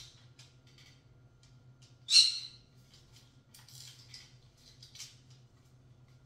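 Green-cheeked conure giving one loud, short, high-pitched squawk about two seconds in, followed by softer chirps and small clicks.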